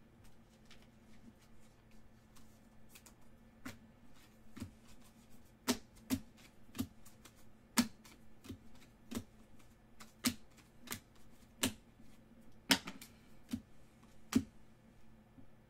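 Trading cards being flipped one after another through a stack in the hands, giving an irregular run of sharp clicks and snaps, a few of them louder, over a faint low hum.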